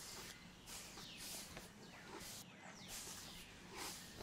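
A hand brush sweeping over a horse's coat in short, rough strokes, about two a second, with birds chirping in falling notes.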